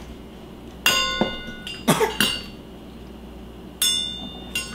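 Metal spoon clinking against small stainless-steel measuring cups and bowls. There are three ringing strikes, about a second in, about two seconds in and near the end, each leaving a metallic ring that fades.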